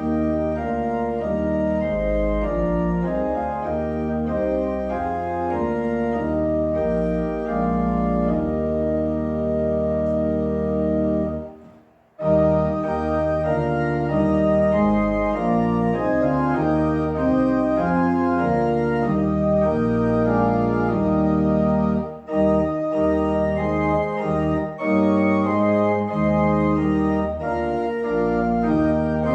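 Organ playing the closing voluntary after the service's dismissal, sustained chords that change every second or so. It breaks off briefly about twelve seconds in and then starts again.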